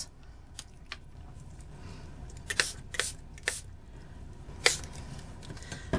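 Ranger Color Wash pump spray bottle giving several short spritzes, three in quick succession around the middle and one more near the end.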